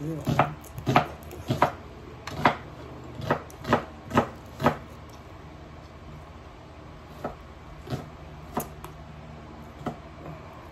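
Crab being eaten at the table: sharp clicks and cracks of shells being broken and a knife cutting against a plate. They come about twice a second for the first five seconds, then only a few scattered ones.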